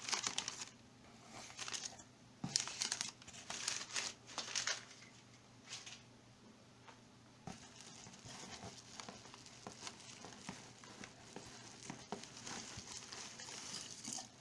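Packing material crinkling and tearing as a parcel is unwrapped by hand, in irregular bursts that are loudest in the first few seconds and settle into softer, steadier rustling in the second half.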